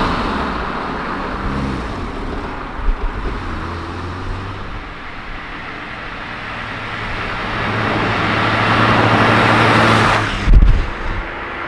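Vauxhall Viva driving past. At first its engine fades as the car pulls away. Then engine and tyre noise build as it comes back, ending in a loud low rush as it passes close about ten seconds in, cut off suddenly.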